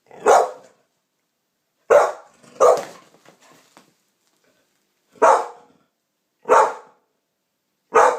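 A pit bull barking six single barks, spaced one to three seconds apart with short pauses between, alert barking at a strange noise she has heard.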